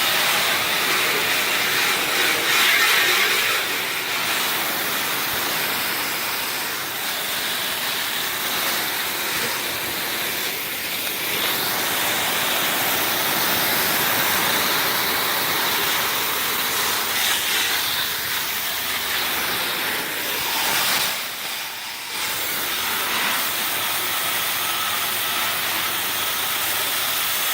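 Water spraying from a hose onto an air conditioner's outdoor condenser unit, a steady hiss that drops off briefly about three quarters of the way through.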